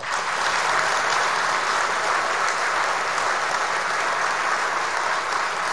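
An audience applauding, a dense, steady clapping that breaks out at once and holds without a break.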